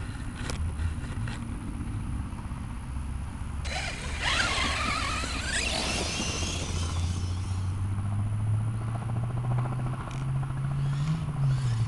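Arrma Talion 6S electric RC truck driving through tall grass: a motor whine that glides up and down with a swishing rush, loudest from about four to seven seconds in. Under it runs a steady low hum that rises in pitch near the end.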